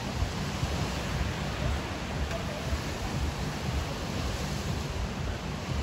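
Steady rushing outdoor noise with a choppy low rumble, typical of wind on the microphone and surf, with faint voices from the crowd.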